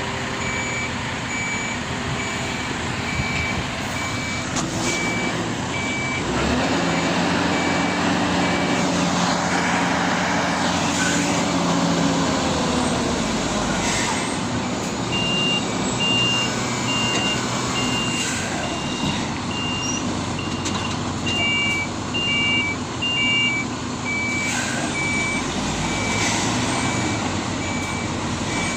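Reversing alarms on heavy vehicles beeping at an even pace, with two alarms of different pitch overlapping in the second half. Underneath, a diesel engine runs, working harder with a steady raised note for several seconds near the middle.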